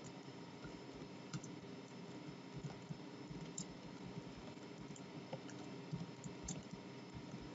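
Faint, irregular keystrokes on a computer keyboard as code is typed, over a steady faint hum.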